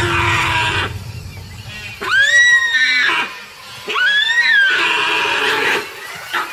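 A deer seized by a crocodile bawling in distress: two loud calls, each about a second long, that rise and then fall in pitch, with splashing water around them.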